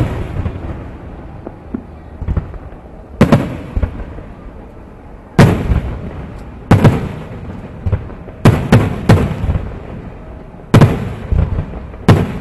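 Aerial firework shells bursting: about six sharp bangs at uneven intervals, each trailing off in a rolling echo, with smaller pops between them.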